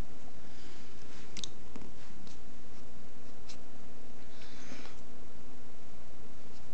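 A kitten sniffing and nibbling at a piece of cereal, giving a few faint clicks and soft rustles over a steady low hum.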